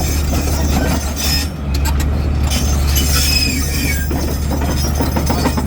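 Caterpillar C13 inline-six diesel engine running loudly and steadily, with a wavering high squeal now and then. The engine is smoking heavily and a faulty injector is suspected of making it misfire.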